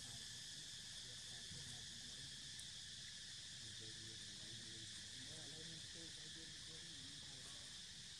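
Steady insect chorus, a high even drone.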